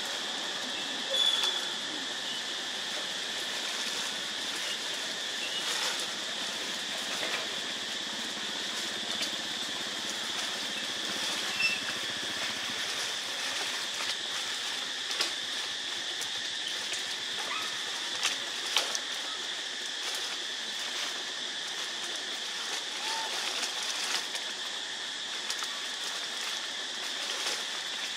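Steady high-pitched insect drone of a forest, with a few short bird chirps and occasional soft clicks over it.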